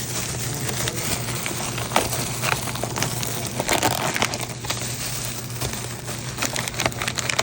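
Plastic packaging crinkling and rustling with many small clicks as a bag of steak taquitos is opened and handled.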